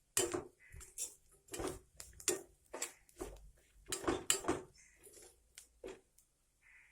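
A spoon scraping and knocking against a pan in quick repeated strokes, about two a second, stirring rava (semolina) as it roasts.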